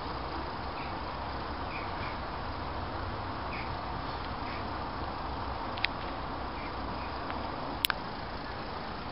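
Small OO gauge model train running on garden track, a steady faint whirring hiss with light scattered ticks. A single sharp click comes near the end.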